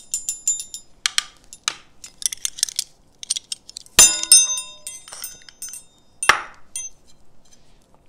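Measuring spoons clinking against one another with a nice ringing tone. A quick run of clinks comes in the first second, then scattered ones, with a loud ringing clink about four seconds in and another a little after six seconds.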